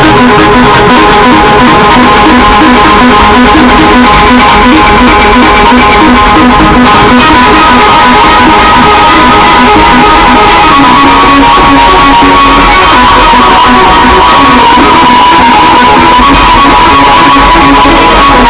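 Guitar-led music played very loud through a show car's custom sound system, with rows of loudspeakers in the door panel and hatch. It is steady and close to clipping, with a repeating riff and held high notes.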